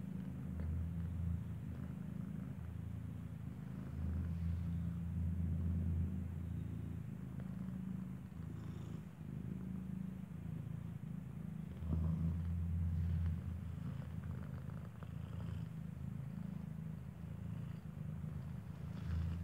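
Mother cat purring while her newborn kitten nurses, a low steady purr that grows louder and softer in turn.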